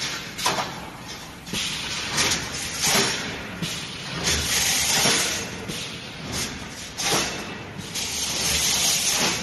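Steel rebar wire mesh welding machine running its cycle: repeated bursts of hissing with sharp knocks, about one every second or so, some longer and louder.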